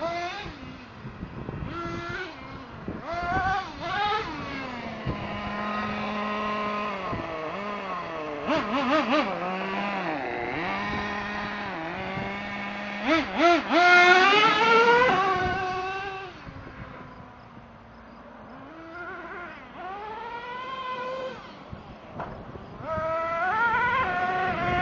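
Traxxas T-Maxx 2.5R nitro RC truck's small two-stroke glow engine revving up and down in repeated bursts of throttle, settling to a steady idle in between. The loudest high-revving run comes about 13 to 15 seconds in, and the engine is fainter around 17 to 19 seconds in.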